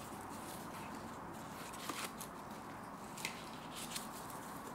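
A few light crackles and clicks as a dry half sheet of nori is laid on a bamboo sushi mat and adjusted by hand, over a steady room hiss.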